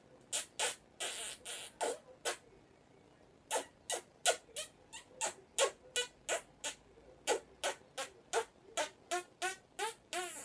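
Rapid, repeated kissing smacks between a woman and an African grey parrot, mouth pressed to beak, about three a second. There is a pause of about a second after about two seconds, and the smacks come quicker and more chirp-like near the end.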